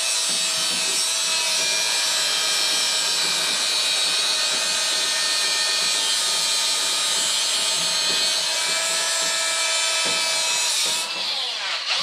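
Grinder with an abrasive cut-off wheel running steadily as it cuts down a bolt, a high-pitched whine with a loud grinding hiss; near the end it winds down, falling in pitch.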